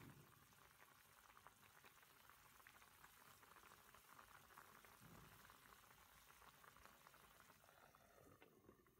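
Faint bubbling crackle of pork pieces simmering in liquid in a pan. Near the end the crackle dulls as a glass lid is set over the pan.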